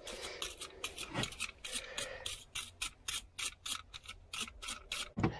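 Wire brush scrubbing the end of a freshly notched PVC pipe in quick back-and-forth strokes, about four a second.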